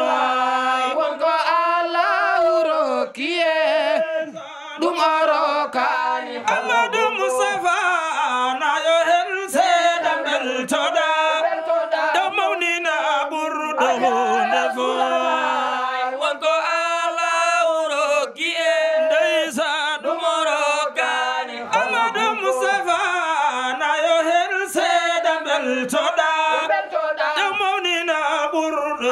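A group of men chanting a Sufi devotional song without instruments: a lead voice on the microphone with several other voices singing along.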